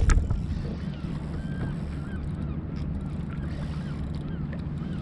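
Wind and water noise on a kayak-mounted action camera's microphone, steady and low, with one sharp click just after the start. Scattered faint short squeaks come through from about a second and a half in.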